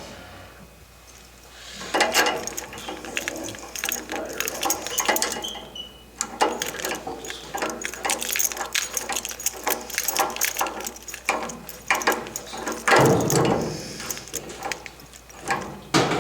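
Hand tools and metal fittings clinking and clicking in quick, irregular strokes, with a louder clatter near the end.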